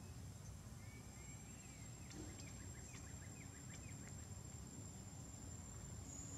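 Faint outdoor ambience: a low rumble and a steady high-pitched whine, with a few faint high chirps about two to three seconds in.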